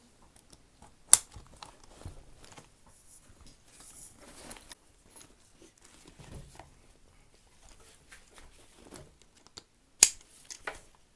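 Inline skates being strapped onto the outside of a backpack: quiet rustling and scraping of straps and fabric, with two sharp clicks, one about a second in and one near the end.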